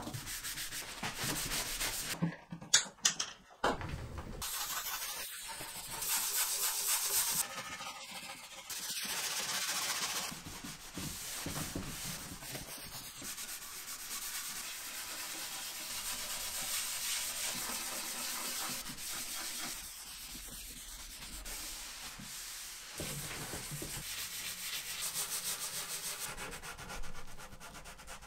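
Repeated hand rubbing on wood: a pad wiping hardwax oil into a cabinet's wooden surface. A few sharp clicks about two to three seconds in.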